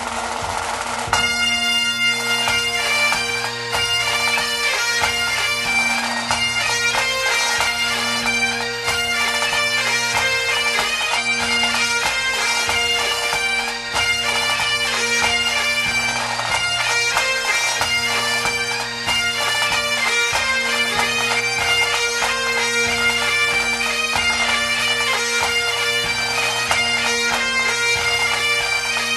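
Bagpipe music: a fast, ornamented melody over a steady drone, coming in about a second in.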